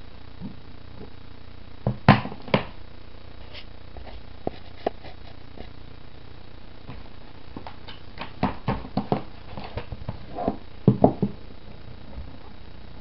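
Hands handling a plastic DVD case and its contents: scattered knocks and clicks, loudest about two seconds in and in a quick cluster near the end.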